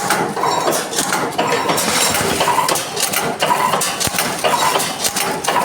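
Agarbatti counting and pouch-packing machine running, with a steady mechanical clatter and many sharp metallic clicks repeating in a regular cycle.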